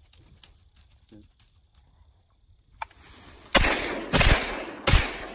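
Three shotgun shots in quick succession, about two-thirds of a second apart, starting about three and a half seconds in, each trailing off in a short echo. Hunters are firing at wood ducks coming in to land.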